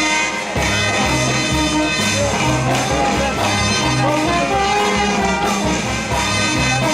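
Marinera music playing loud and steady, with a bass line under a melody that bends in pitch, likely a band with singing.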